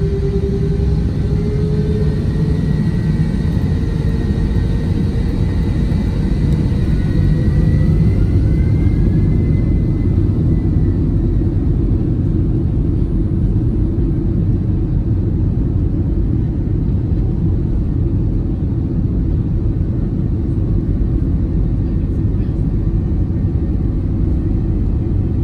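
Airbus A321 jet engines heard from inside the passenger cabin during taxi: a steady, loud rumble, with engine tones rising in pitch over the first several seconds as the engines spool up.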